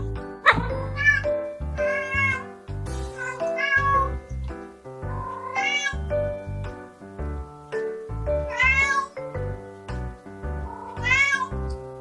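Domestic cat meowing several times, a few seconds apart, each call rising then falling in pitch, over background music with a steady beat; a sharp knock sounds about half a second in.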